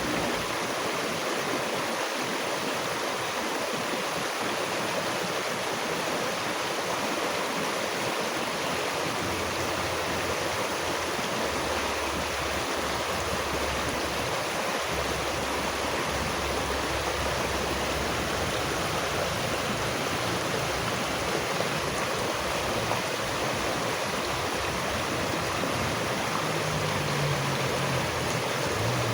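Steady, even rush of flowing water in a stream.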